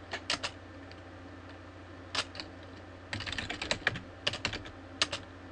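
Computer keyboard typing: short runs of keystrokes separated by pauses, as shell commands are typed. A faint steady low hum lies underneath.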